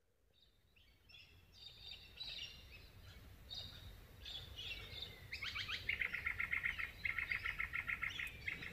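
Morning chorus of wild birds: several birds chirping and calling, then from about five seconds in one bird sings a rapid run of short repeated notes.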